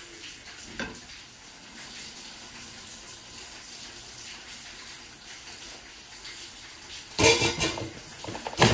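Water poured from a jug into a stainless-steel pot of chicken cooking on the stove, over a steady hiss. Near the end, two loud clatters of kitchenware against the pot.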